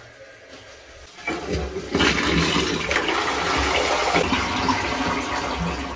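Siphonic toilet flushing as a test flush: a rush of water into the bowl builds from about a second in, runs loud for a few seconds and eases off near the end.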